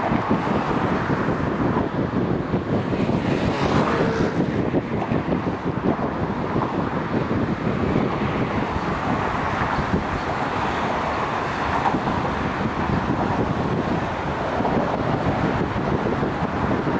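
Road traffic passing close by, a steady rush of tyres and engines, with wind noise on the microphone. One vehicle passes especially close about four seconds in.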